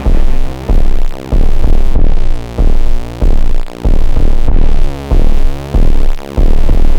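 Electronic music with a heavy bass that swells and drops in regular surges, roughly one and a half a second.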